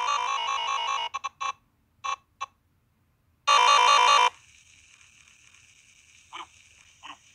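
Glitch-edited audio from a YouTube Poop: a TV chef's voice clip rapidly stuttered and pitch-shifted into a buzzy, ringtone-like electronic tune. About a second in it breaks into short chopped blips with gaps. A loud burst comes around three and a half seconds in, followed by a faint thin high tone with two brief blips.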